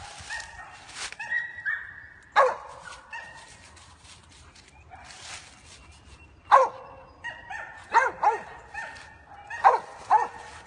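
Kemmer feist barking at the foot of a tree in sharp, irregular barks, with high whining between them.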